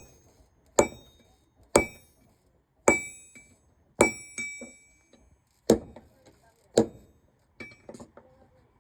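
Hand hammer striking steel on an anvil, one blow about every second, each with a short metallic ring. A few lighter taps come near the end.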